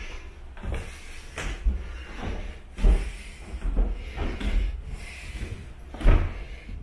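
Footsteps climbing wooden stairs, with a thudding knock at about every step, roughly one every three quarters of a second. Two knocks are louder, one near the middle and one near the end.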